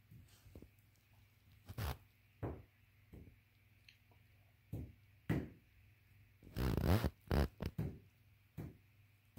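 Carolina dog huffing and grumbling in short, irregular bursts, with a longer, louder run of them about seven seconds in.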